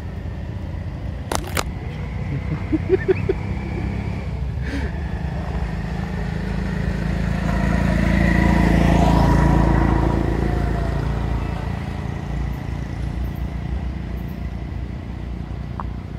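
A motor vehicle passing on the road: a low engine rumble swells to its loudest just past the middle and then fades away. A few sharp clicks come in the first five seconds.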